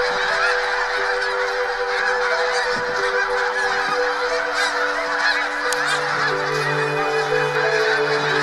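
A large flock of snow geese honking together in a dense, unbroken chorus.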